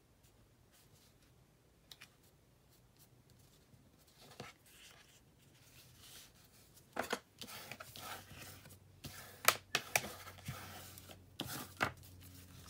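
Folded scrapbook paper being smoothed, creased and slid about by hand. It is near-quiet at first, then paper rustles and rubs, with several sharp snaps and taps in the second half.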